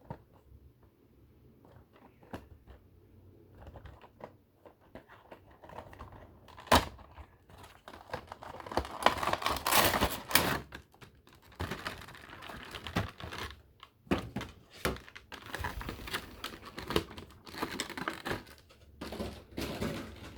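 Hands handling and opening a Funko Pop vinyl figure's cardboard box and plastic packaging: scattered taps and knocks with crinkling and rustling, loudest about halfway through and again near the end.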